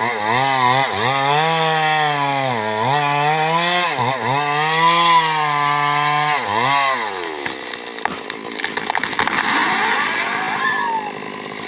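Stihl MS 382 two-stroke chainsaw running at high revs, its pitch dipping and recovering several times as the throttle is worked. About seven seconds in, the steady engine tone gives way to a rough, noisy sound.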